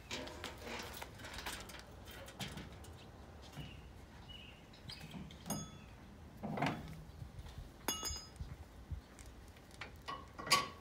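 Aluminium folding loading ramps clanking and rattling as they are unfolded and set onto a pickup's tailgate: scattered knocks, two metallic clinks that ring briefly, and the loudest knock near the end.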